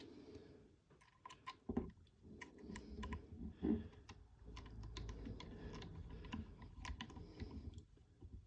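Faint, irregular small clicks and taps of small parts being handled: a screw and spring being worked into place inside a 3D-printed airsoft chassis part.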